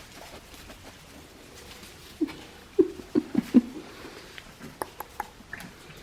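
Four-week-old Australian Shepherd puppies yipping: a quick run of about five short yips about two seconds in, followed by a few fainter, higher squeaks.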